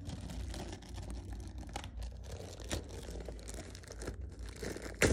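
Clear plastic wrapping crinkling and tearing as a charcoal filter pad is unwrapped by hand, with many small crackles and one sharp click near the end.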